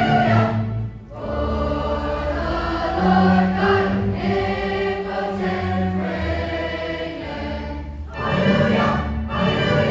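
Large school choir singing held chords with a small band accompanying, low bass notes underneath. The sound dips briefly about a second in and a new, louder phrase begins about eight seconds in.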